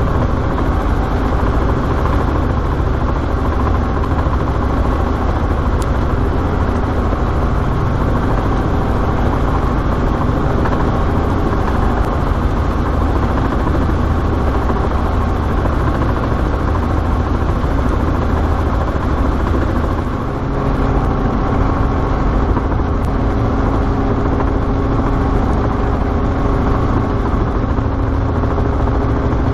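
Robinson R44 helicopter's piston engine and rotors running steadily in flight, heard inside the cabin. About two-thirds of the way through the level dips briefly and a new steady low hum comes in as the note shifts.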